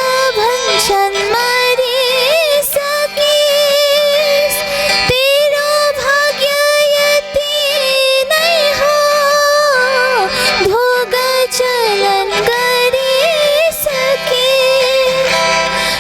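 A female singer sings a Nepali song over musical accompaniment. She holds long notes with vibrato and slides between pitches.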